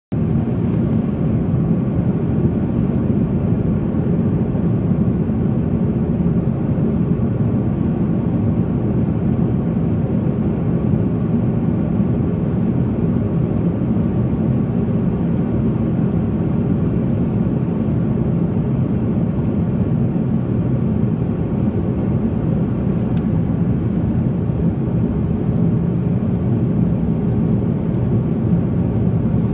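Steady low drone of an airliner's cabin in flight: engine and airflow noise, even throughout.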